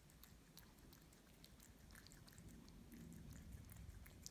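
Tabby cat eating soft homemade oat mash from a small bowl: faint, irregular wet chewing clicks.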